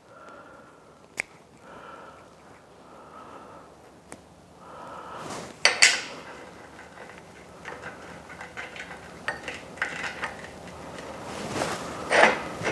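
Metal clinks, knocks and clatter of steel pieces and hand tools being handled on a workbench, with one louder knock about halfway through and another near the end.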